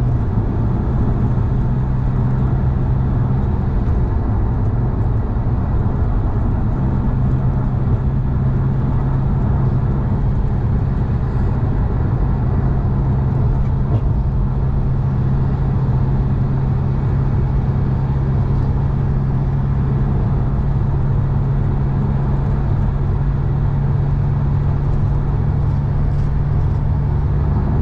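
Steady, unbroken drone of a vehicle running, with a constant low hum under an even noise.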